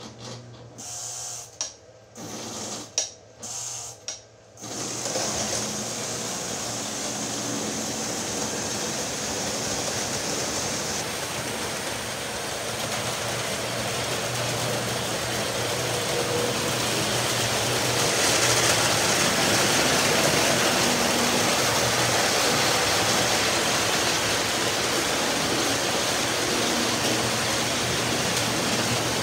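Early-1950s Lionel Santa Fe F3 diesel model trains (2343 and 2353, two motors each) running together on an O-gauge layout: a loud, steady whir and rattle of motors, gears and wheels on the rails over a low hum, growing louder as it goes. It opens with a few short bursts of sound before the steady running sets in.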